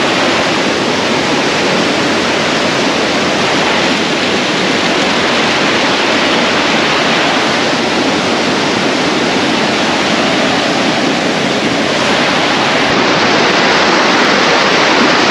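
Fast river water rushing loudly and steadily as it cascades in small waterfalls over boulders.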